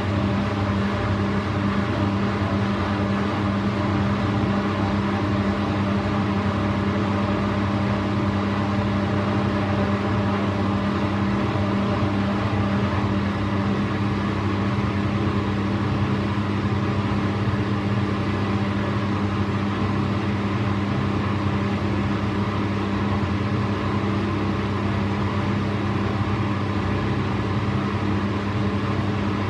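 Bosch Maxx 4 WFC 1200 front-loading washing machine running with a steady, unchanging hum, after being started on its spin programme and before the drum begins its spin run-up.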